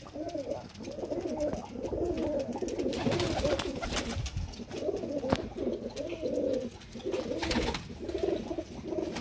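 Domestic pigeons cooing continuously, several birds' rolling coos overlapping. A few short sharp clicks come through here and there.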